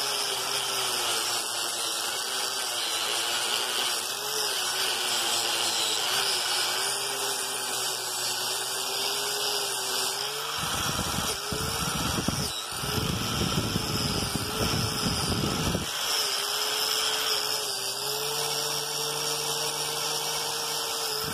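Angle grinder with a wire cup brush running and scrubbing rust off a steel sledgehammer head, a steady motor whine under a scratchy wire hiss. For about five seconds in the middle the whine gives way to a rougher, heavier scrubbing.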